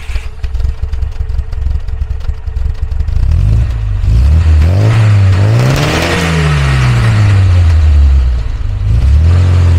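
1964 Volvo PV544's B18 four-cylinder engine heard from the exhaust. It idles with an uneven beat, is blipped once, then revved up to a peak about six seconds in and let fall slowly back to idle near the end.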